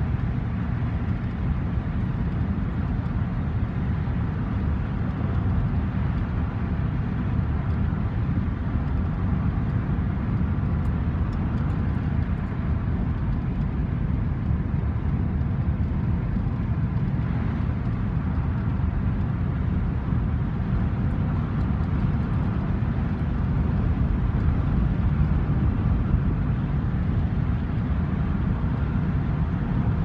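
Road noise inside a car's cabin at freeway speed: a steady low rumble of tyres and engine.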